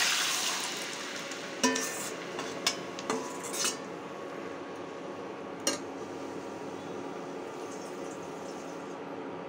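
Boiled masoor dal with cabbage poured into hot tempered oil in a kadai, sizzling loudly at first and dying away over a second or two. A steel ladle then clinks against the pan and the bowl several times as the dal is scraped in and stirred.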